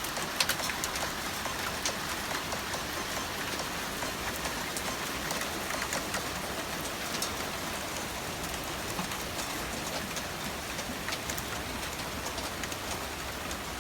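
Steady rain: a dense, even hiss of falling water with many sharp ticks of single drops striking surfaces.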